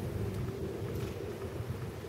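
Steady outdoor background rumble with wind buffeting the microphone and a constant low hum underneath.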